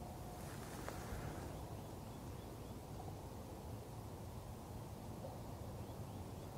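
Faint steady outdoor ambience, a low rumbling hiss. A brief rustle of noise comes about half a second in, with a sharp click near one second and a few faint short tones scattered through.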